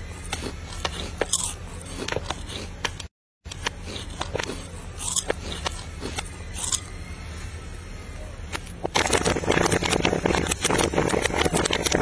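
Popcorn being stirred and turned in a large metal wok, with scattered scrapes and light clicks. About nine seconds in this turns into a dense, louder crackling rustle, over a steady low hum. The sound cuts out briefly about three seconds in.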